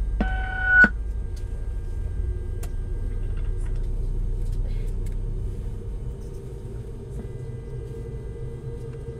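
Steady low rumble of a Boeing 717's cabin noise, with a short electronic beep ending just under a second in.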